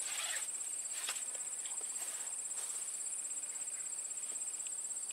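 Steady high-pitched chirring of insects, with a few faint short ticks over it.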